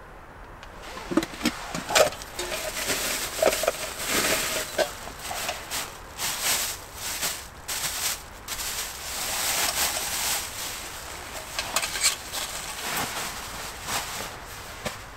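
Someone moving about and handling camp gear: irregular rustling with scattered clicks and knocks.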